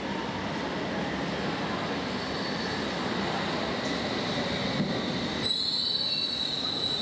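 London Underground S7 Stock train running into the platform, a steady rumble of wheels and motors on the rails. About five and a half seconds in, a loud, high, steady squeal sets in as it slows.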